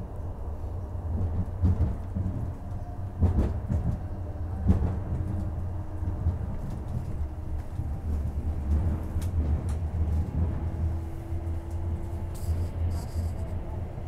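Stadler Citylink Class 399 tram-train running, heard from inside the passenger saloon: a steady low rumble, with three sharp knocks in the first five seconds and a faint steady whine in the second half.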